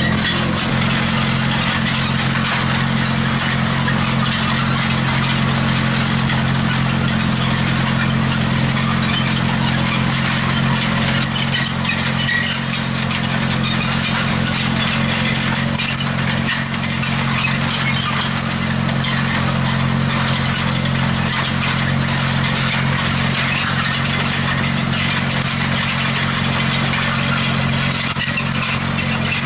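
Tractor engine running at a steady speed, pulling a mounted seed drill while it sows, over a steady hiss and rattle of soil moving past the drill's coulters.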